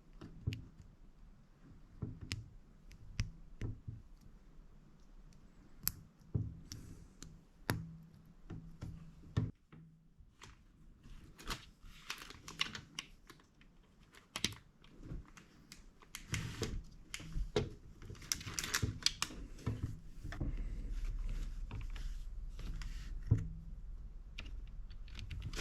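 Small plastic building bricks being handled and pressed together: irregular light clicks and taps. There are denser stretches of rattling and rustling of loose pieces through the middle.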